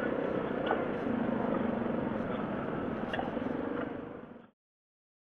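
Yamaha 700 ATV's single-cylinder engine running at low trail speed over rocks, with scattered knocks and rattles from the machine. The sound fades about four seconds in and then cuts to dead silence.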